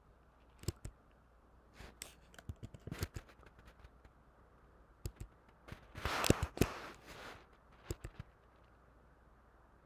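Computer keyboard keys being typed in short irregular bursts of clicks, with the busiest and loudest flurry a little past the middle.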